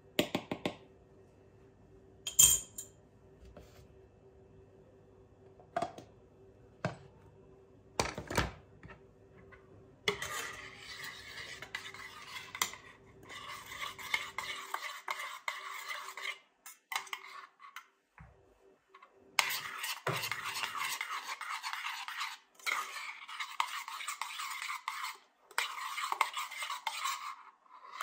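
A metal spoon and containers clinking a few times, then the spoon stirring round inside a small stainless steel pot, scraping the metal in long runs broken by short pauses.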